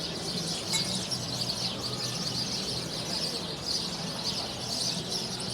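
Outdoor town-centre ambience: indistinct chatter of people around, with many small birds chirping over a steady background hum.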